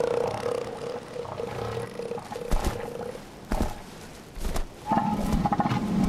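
Bull northern elephant seals calling. A steady, drawn-out call fades out about three seconds in and a few sharp knocks follow. About five seconds in, a bull starts a loud, pulsed, rhythmic call.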